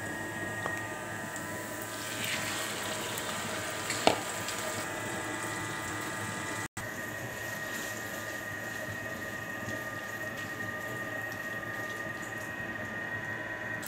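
Steady hiss of food frying in a nonstick pan, under a faint steady hum. A brief clatter comes about four seconds in.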